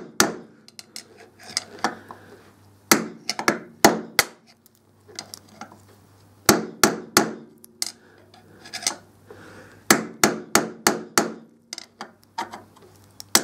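Hammer tapping on a long screwdriver used as a drift, walking the old lower steering-head bearing outer race out of a motorcycle headstock. Sharp taps come in short bursts of several, with pauses between as the drift is moved from side to side.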